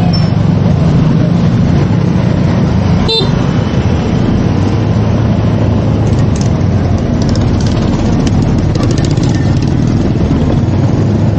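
Motorcycle engine running at low speed, with wind and road noise on the microphone; its note drops about five seconds in. A short horn beep sounds about three seconds in.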